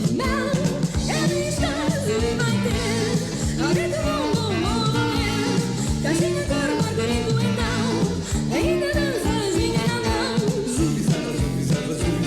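Song playing: a sung melody over a band with a fast, steady beat, in a rockabilly style.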